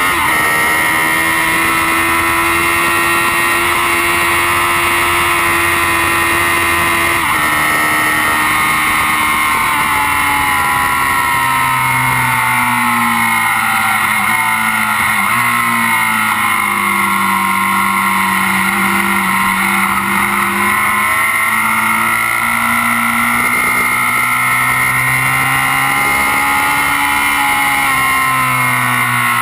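Kawasaki Z750's inline-four engine running hard at track speed, heard close up beside the engine cases. The revs hold steady for the first several seconds, fall away through the middle, and climb again in the last part.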